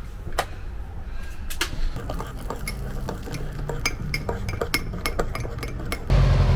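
Spoon and crockery clinking while coffee is made: a run of sharp, quick clinks, some in close clusters. Near the end a loud, steady low rumble starts suddenly.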